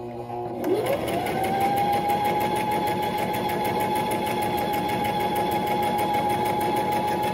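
Brother sewing machine sewing a row of long basting stitches at a steady speed. About a second in, its motor whine rises as it comes up to speed, then holds steady under the needle's rapid, even clatter.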